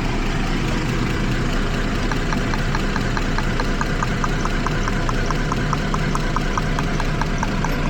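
Jeep Liberty V6 idling with a misfire, and from about two seconds in a sharp, even ticking at about five a second. The ticking is spark arcing off the side of an ignition coil boot, where carbon tracking has formed.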